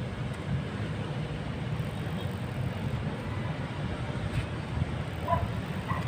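Steady low rumble of city background noise, with two short high chirps near the end.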